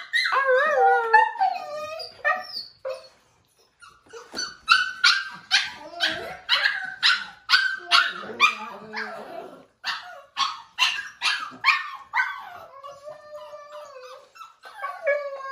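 A five-week-old pitsky puppy barking and howling in protest. It opens with a wavering howl and pauses. Then comes a run of quick high-pitched yaps, about two a second, and a longer wavering howl near the end.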